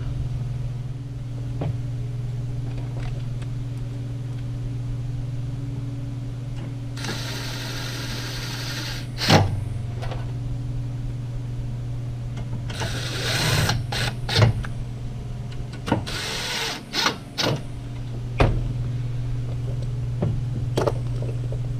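A small power driver running in three short bursts, driving the screws that hold a headlight trim ring, with a few sharp clicks and knocks of the parts being handled over a steady low hum.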